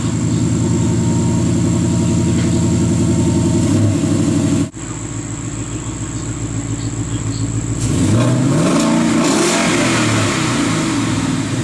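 2012 Mustang GT's 5.0 V8 running through a freshly installed Borla ATAK cat-back exhaust with X-pipe, idling steadily just after start-up. Its note drops abruptly about five seconds in, then about eight seconds in it revs once, rising in pitch and settling back to idle.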